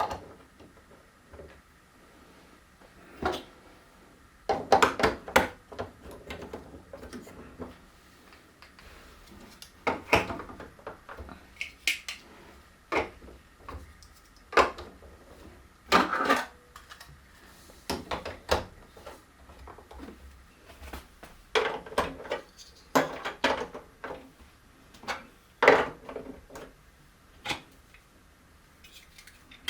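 Hard plastic marble run pieces clacking and knocking: irregular sharp clicks, some in quick clusters, with pauses between.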